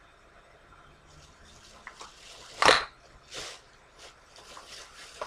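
Rustling and handling noise as candles are taken out of a packed bag, with one loud sharp sound about two and a half seconds in and a weaker one shortly after, then a few light clicks.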